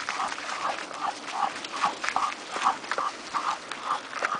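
Karelian bear dog panting in a quick, even rhythm, about three breaths a second, as it trots ahead on a leash.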